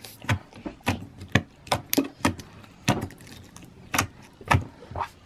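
Fingers poking slime in a small jar, making a series of sharp, wet clicking pops, about two or three a second at uneven spacing.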